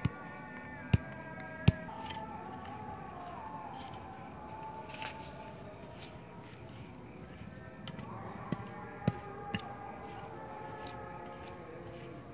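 Crickets chirring in a steady, high, continuous trill. A few sharp knocks cut through it, three in the first two seconds and three more between about eight and ten seconds in.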